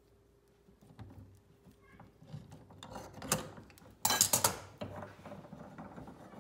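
Metal parts of a Premier Sonoma kitchen faucet being unscrewed with pliers and then by hand: scattered metallic clicks and a scrape, then a loud metallic clatter and rattle about four seconds in, followed by softer scraping of the threaded section turning.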